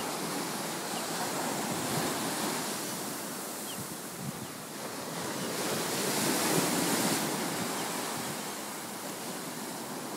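Ocean surf breaking and washing up a sandy beach, swelling louder as a wave comes in about six seconds in.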